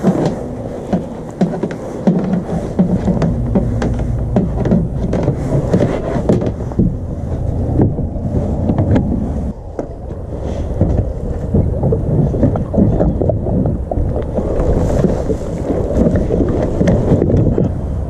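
Wind buffeting the camera microphone, with repeated knocks and bumps from a plastic sit-in kayak being handled and boarded.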